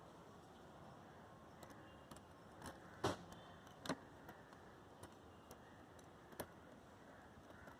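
Faint, scattered clicks of metal hand tools working on bolts, four or five short ticks with the loudest about three seconds in.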